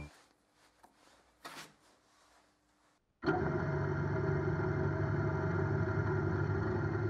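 A drill press motor starts suddenly about three seconds in and runs steadily while its round cutter bores into the top of a pumpkin. Before it there are only faint handling noises.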